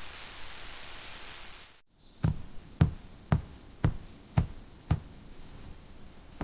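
A steady hiss that cuts off abruptly, then a kitchen knife chopping on a cutting board: six even chops, about two a second.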